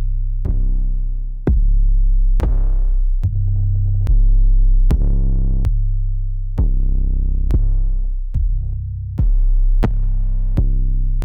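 Trap beat built from the ZARA Trap Drum Kit's sample pack: deep, long-held 808 bass notes that shift in pitch, under sharp kick, snare and percussion hits about every half second to a second.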